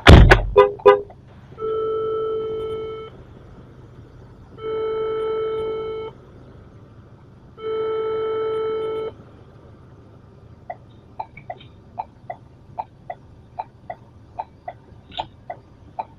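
A few loud knocks, then a car horn honked three times, each a steady blast of about a second and a half. After that a car's indicator ticks steadily, about two or three ticks a second.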